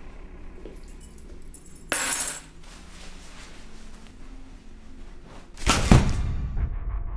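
Horror-film sound design: a short, sharp noisy hiss-like burst about two seconds in, then a loud crash with a deep boom near the end that rings on and slowly fades.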